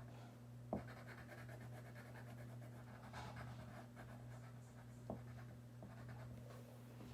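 Coloured pencil shading on paper, pressed hard, a faint steady scratching, with two light clicks, one near the start and one about five seconds in.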